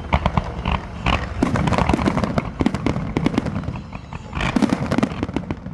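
Fireworks going off: dense, rapid crackling and popping from many bursts at once. They ease off briefly about four seconds in, then a fresh cluster of crackles follows.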